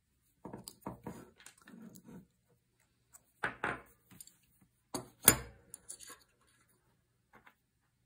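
Small steel parts of a Beretta shotgun lock clicking and tapping as they are handled and fitted together by hand. One sharp metallic click, the loudest, comes about five seconds in.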